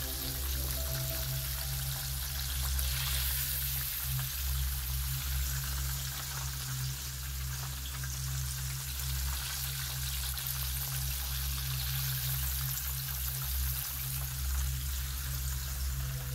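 Battered fish fillets deep-frying in olive oil: a steady sizzling crackle of bubbling oil.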